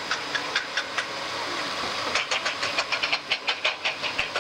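Greyhound track's mechanical hare running along its rail towards the traps: a steady hiss with a series of clicks that grows louder and quicker about halfway through as it nears.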